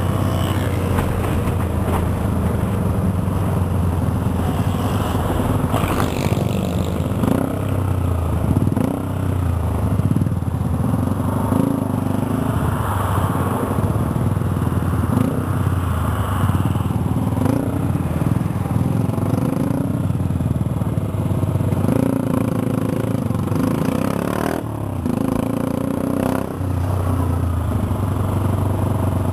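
Motorcycle engine running on the move, heard from on the bike, its note shifting up and down several times as the rider works the throttle in traffic, over steady road noise.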